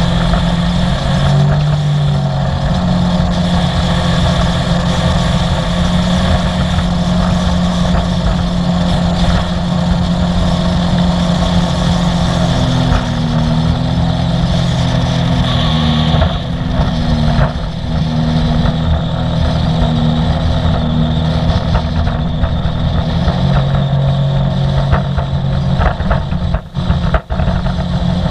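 Sea-Doo personal watercraft engine running steadily at cruising speed over the rush of water, its pitch holding nearly constant, with a couple of brief dips in loudness near the end.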